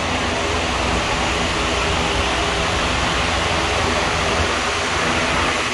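Large electric barn fans running: a steady rushing noise with a low hum underneath.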